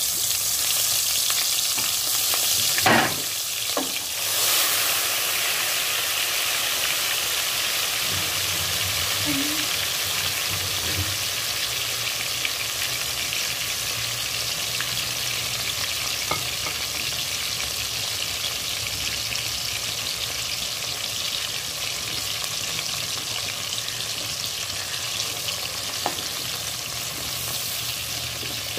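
Turmeric-and-salt-coated prawns frying in hot mustard oil in a wok: a steady, dense sizzle, with two sharper, louder spits about three and four seconds in. The sizzle eases slightly as it goes on.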